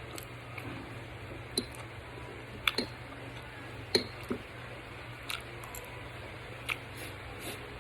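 Close-up eating sounds from someone eating boiled saba banana: a scattering of sharp mouth clicks and smacks, about seven over several seconds, over a steady low hum.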